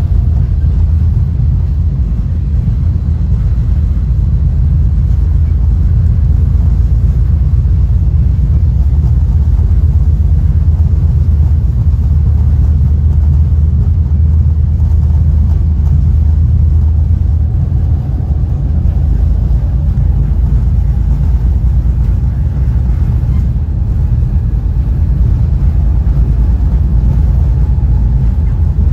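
Interior running noise of a Caltrain Gallery passenger car moving at speed: a steady, loud, deep rumble of the car rolling on the track. It eases slightly a little past halfway.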